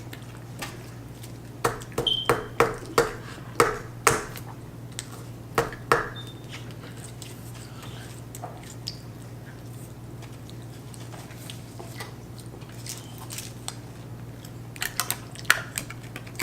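Sharp clicks and taps of food containers and packaging being handled during a meal, in a cluster over the first few seconds and again near the end, with a couple of brief high pings, over a steady low hum.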